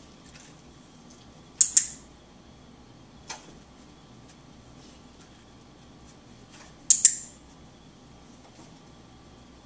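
Dog-training clicker clicked twice, about five seconds apart, each a sharp double click from press and release, marking the dog's behaviour as it is shaped. A much fainter tick falls between the two.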